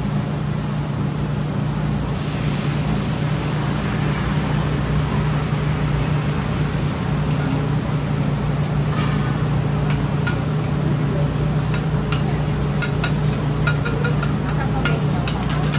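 Street-food stall cooking ambience: a steady low hum under a general noisy background with faint voices, and from about nine seconds in a run of sharp clicks and taps.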